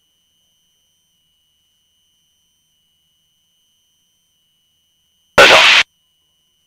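Aircraft intercom audio with only a faint steady high-pitched whine, broken once by a loud half-second burst of noise about five and a half seconds in.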